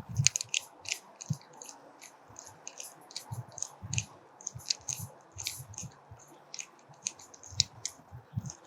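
Irregular clicks and light knocks of hand-tightening the screws on a metal pipe mounting strap, some landing in quick pairs.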